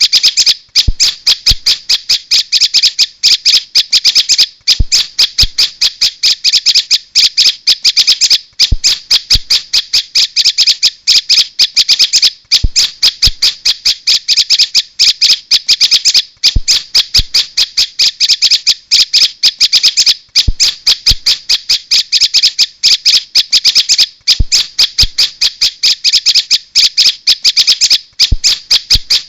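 Prenjak (prinia) calls played as a bird-trapping lure: a loud, fast, unbroken chatter of sharp high notes. The phrase repeats about every four seconds, as in a looped recording.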